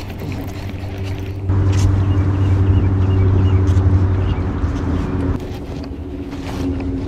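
Electric trolling motor running with a steady hum, pushing harder for a few seconds from about a second and a half in, then easing off.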